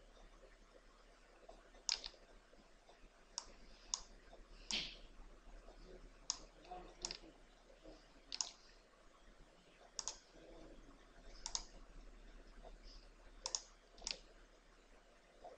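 Computer mouse buttons clicking: about a dozen short, sharp single clicks at irregular intervals, one every second or so, with two close together near the end.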